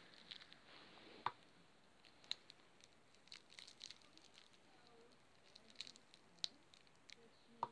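Near silence broken by faint, scattered small clicks and rustles of hands handling small objects, about a dozen in all, the clearest about a second in and at the very end.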